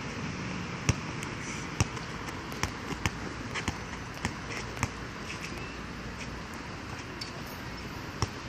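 Basketball bouncing on the court: a run of sharp, irregular thuds in the first five seconds, then one more near the end.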